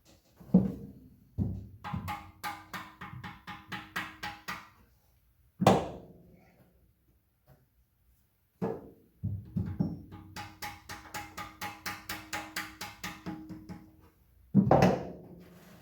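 Rapid ringing metal taps, about five a second, in two long runs, with single heavier knocks between and a hard knock near the end: the tight-fitting duplex timing chain sprockets being tapped onto the crankshaft and camshaft of an MGB engine.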